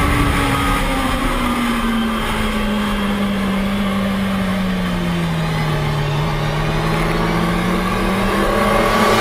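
Sport motorcycle engine running at road speed under heavy wind and road noise; the revs ease off slowly through the middle and build again toward the end.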